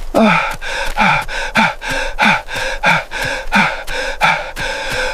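A man's rapid, pained gasping breaths with short whimpers that fall in pitch, about two to three a second: a sign of pain from a burn.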